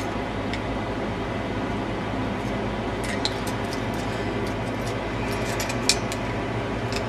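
Scattered light clicks and rattles of a stock CPU heat sink and fan being handled and its fan cable untangled. These come mostly in the second half, over a steady low hum.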